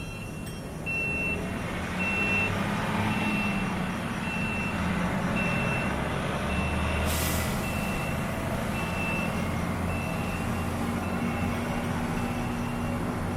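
A bus's external signal beeper sounding a single high beep about once a second, over a low engine rumble. There is a short hiss of air about halfway through.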